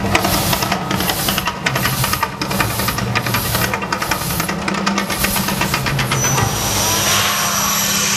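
Mirage volcano attraction erupting: a loud hiss and rush from its fountain jets and gas flames over a deep, shifting rumble. The hiss swells near the end as the eruption builds to full height.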